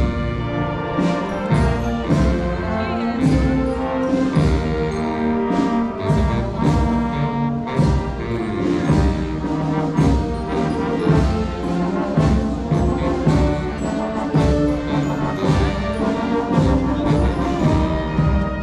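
Brass band playing a tune with many instruments at once, with a steady beat marked by drum strokes.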